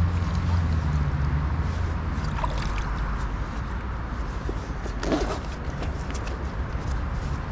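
Creek water running and sloshing around a landing net held in the stream, with a low rumble on the microphone that is strongest in the first second and a half. A short splash about five seconds in.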